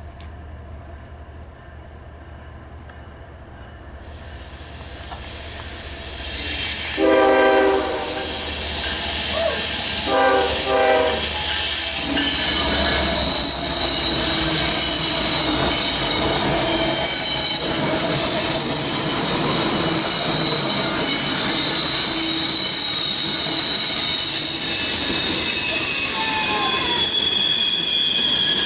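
CSX freight train approaching with its diesel locomotives rumbling, then two blasts of the locomotive horn, the first about seven seconds in and the second about ten seconds in. The freight cars then roll past with steady, high-pitched wheel squeal.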